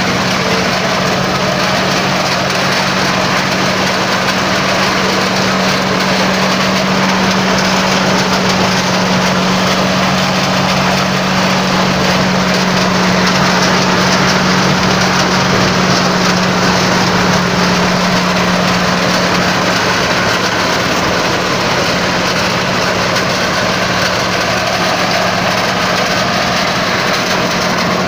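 Engine-driven corn thresher running steadily: a constant hum with a dense, even noise from the machine over it.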